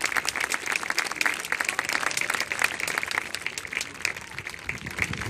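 Crowd applauding, many hands clapping at once, thinning and dying down near the end.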